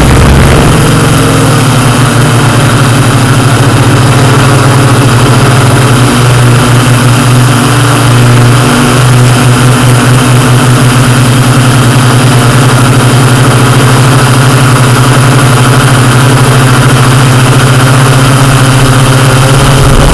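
Yuneec Q500 quadcopter's electric motors and propellers buzzing steadily in flight, over a constant hiss of rushing air. The buzz steps up slightly in pitch about half a second in.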